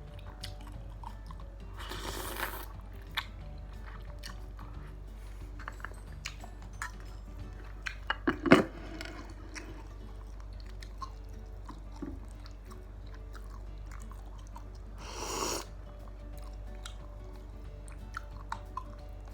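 Close-up eating sounds of chicken noodles and meatballs in broth: chewing with small clicks, a cluster of sharp clicks and knocks about eight seconds in, and two longer noisy bursts, near the start and about fifteen seconds in, over soft background music.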